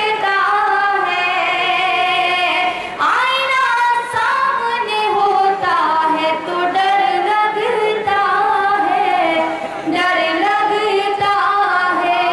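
A woman singing an Urdu ghazal solo in tarannum style, unaccompanied: long held notes with sliding, ornamented pitch.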